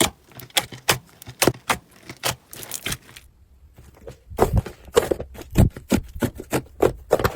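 Slime being squeezed and pressed by hand, making irregular crackles and sharp pops. About three seconds in it cuts out for a second, then resumes with louder, deeper pops.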